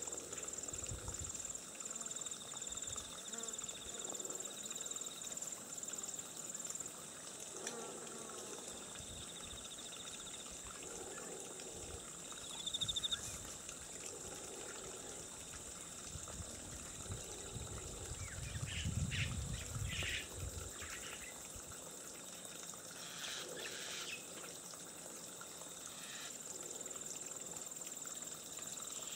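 Feral boar munching and rooting as it forages, in short repeated bouts, with steady pulsing insect trills and trickling water behind.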